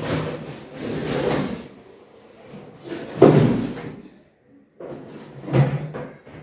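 Pantry cupboard doors and drawers opening and closing as mangoes are put away, with three bouts of knocking and rubbing, the loudest about halfway through.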